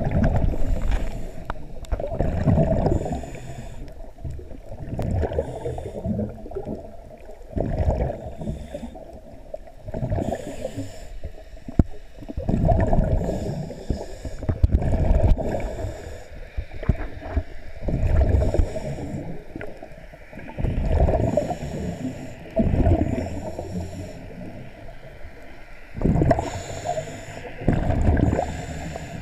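Underwater breathing through a scuba regulator: each breath brings a burst of hissing and bubbling, repeating every two to three seconds.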